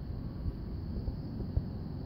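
Soft footsteps on stone paving, about two a second, over a low, steady outdoor rumble.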